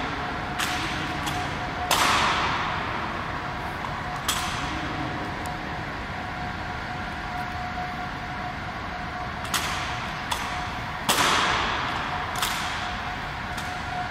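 Sharp, unevenly spaced strokes of an honor guard's rifle-and-boot drill (rifle handling and stamping), each ringing on in a long hall echo. Two of the strokes are much heavier than the rest.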